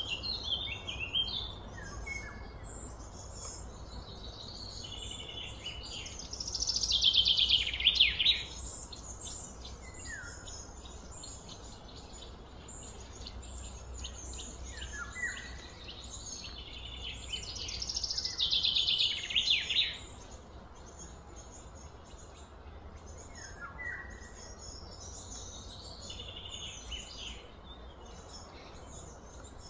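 Outdoor ambience of birds chirping and calling over a steady low background rumble, with two louder runs of rapid repeated high calls, about seven seconds in and again near twenty seconds.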